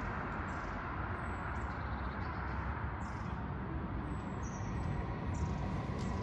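Steady hum of distant city traffic, with small birds giving short high chirps several times.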